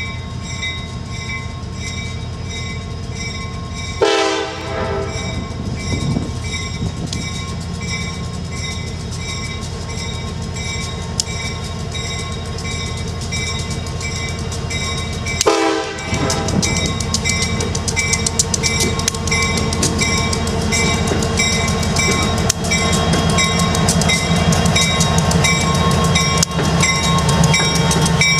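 Two CSX SD70M diesel-electric locomotives approaching at low speed and passing close by, their EMD 710 diesel engines running louder as they draw alongside near the end. A bell rings steadily throughout, and the horn gives two short blasts, about 4 seconds and about 15 seconds in.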